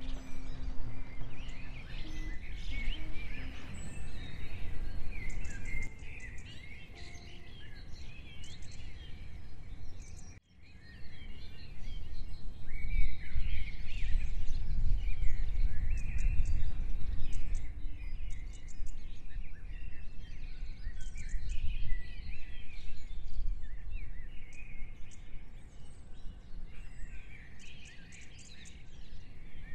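Birds chirping and singing over insects trilling, with a steady low rumble underneath; the sound cuts out for a moment about ten seconds in.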